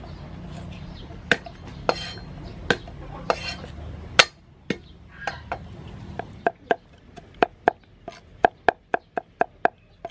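Cleaver knocking on a thick wooden chopping block: a few scattered knocks, the loudest about four seconds in, then steady chopping of garlic at about three strikes a second over the last four seconds.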